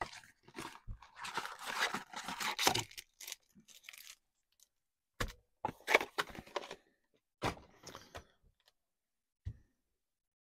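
Cardboard box and card-pack wrappers being handled as trash is cleared from the table. Crinkling and rustling for the first few seconds, then a few short knocks and taps, and a soft thump near the end.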